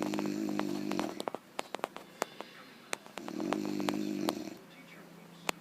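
Snoring in slow breaths: a buzzing snore lasting about a second, then a longer one about three seconds in, with faint scattered clicks in the quiet between.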